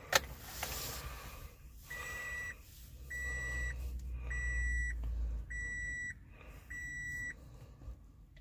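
A sharp click as the ignition is switched on, then the 2006 Toyota Matrix's dashboard warning chime beeping five times at one steady high pitch, each beep about half a second long and about a second apart.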